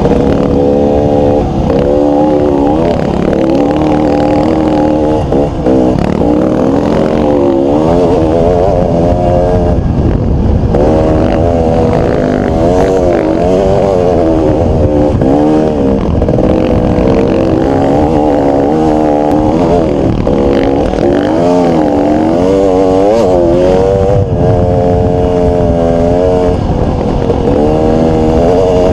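Dirt bike engine heard close from the rider's helmet, riding over sand dunes, its revs rising and falling over and over as the throttle is worked.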